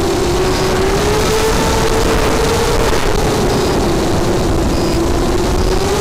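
FPV quadcopter's electric motors and propellers whining, heard from the craft's onboard camera, the pitch drifting up and down as it flies, over a steady rush of wind noise.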